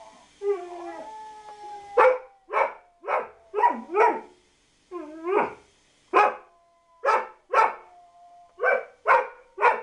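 A dog barking in a quick series of about a dozen short, sharp barks starting about two seconds in, with a faint thin whine held between the barks.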